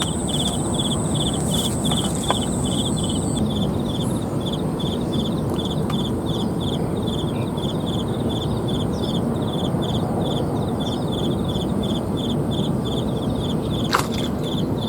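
An insect chirping in a steady, even pulsing rhythm, about four to five chirps a second, over a steady low rushing noise. One sharp click near the end.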